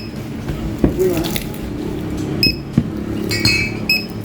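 Short electronic beeps from a checkout barcode scanner, about four in a few seconds as goods are scanned, with light clinking of items being handled and a murmur of voices.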